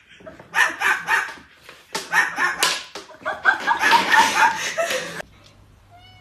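A small dog barking in three rough bursts of short, harsh yaps, followed about six seconds in by a single faint, rising-and-falling cat meow.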